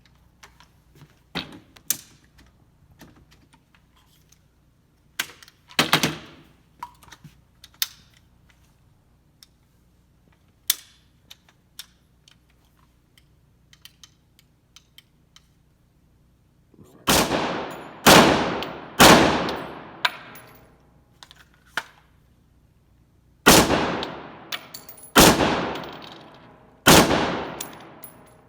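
Gunshots at a shooting range. The first half holds only scattered small clicks and a few fainter shots. From about seventeen seconds in come six loud shots, each with a long fading echo: three about a second apart, a short pause, then three more.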